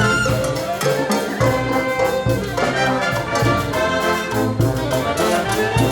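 Brass band playing Peruvian cumbia: trumpets and trombones carrying the melody over a steady percussion beat.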